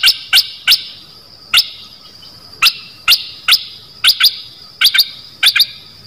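Stripe-throated bulbul calling: a run of very short, sharp, piercing notes at an uneven pace, about two a second, over a faint steady high tone.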